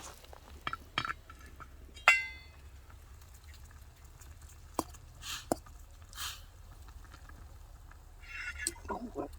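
Metal camp cookware clinking as the pot of ramen noodles cooks over a small fire: scattered light taps and clicks, with one sharp ringing clink about two seconds in.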